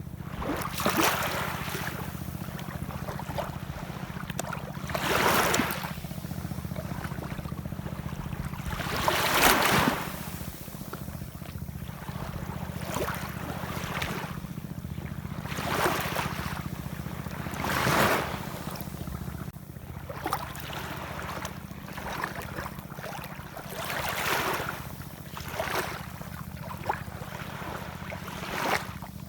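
Ocean waves breaking and washing in, one hissing surge every few seconds, over a steady low rumble.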